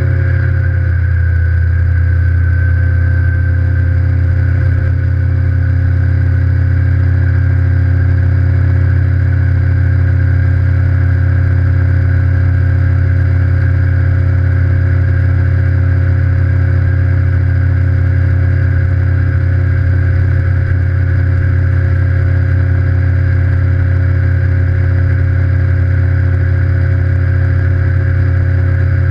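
Evinrude E-TEC G2 150 HO V6 two-stroke outboard running at planing speed, a loud steady drone that settles slightly in pitch in the first second and then holds.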